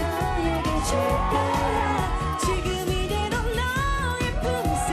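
Women singing a Korean dance-pop song live into handheld microphones over band music with a steady beat.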